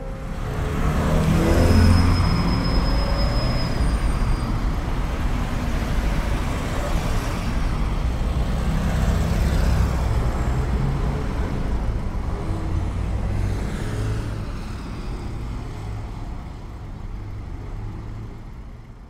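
Deep rumble of heavy motor vehicles, swelling over the first two seconds and slowly fading toward the end, with a thin high squeal about two seconds in.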